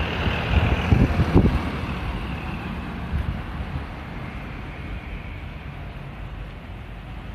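Street traffic: a vehicle passing by and fading away, with wind buffeting the microphone for the first second and a half.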